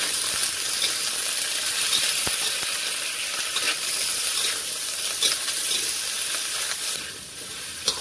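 Sliced cucumber, shallots and garlic sizzling in hot oil in a frying pan, stirred with a spatula that ticks against the pan. The sizzle drops away about seven seconds in, with one sharp tap on the pan near the end.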